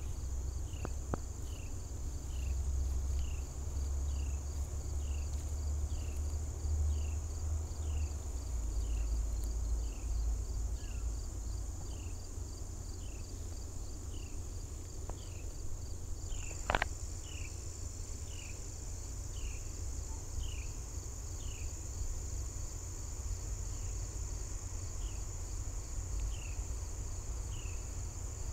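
Crickets trilling steadily at a high pitch, with a short falling chirp repeating about once a second that pauses for a few seconds late on. A low rumble runs underneath, and one sharp click comes a little past halfway.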